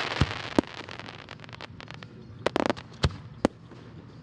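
Aerial fireworks: the crackle of a burst fading out at the start, then a few sharp bangs of shells, in two pairs about half a second apart, with a brief rattle of crackles between them.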